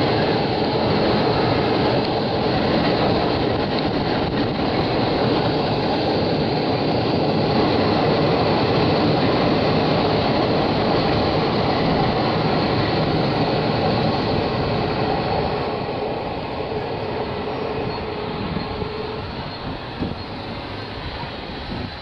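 Twin WDG-3A ALCO diesel locomotives pulling a passenger train away under load, their engines running together with the rumble of the coaches rolling over the rails. The sound stays loud and steady, then fades slowly over the last several seconds as the train draws away.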